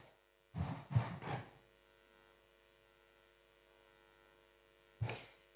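Quiet pause filled by a faint, steady electrical mains hum from the sound system, broken by a few soft, short noises at the microphone about a second in and once more near the end.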